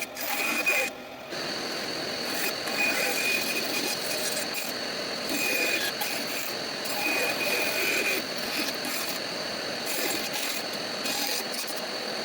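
Bandsaw running and cutting through a 2x4 blank, a steady mechanical noise with a thin high whine from the blade.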